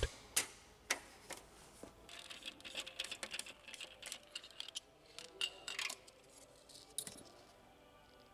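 Faint handling noise of small hard objects: a few separate clicks, then a run of quick light ticks and scrapes in the middle, and one more click near the end.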